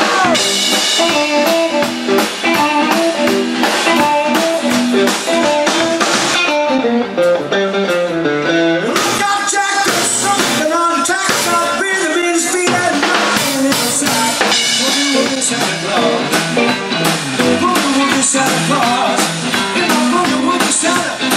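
A live blues-rock band plays: an electric guitar runs melodic lines over a drum kit and bass, steady and loud throughout.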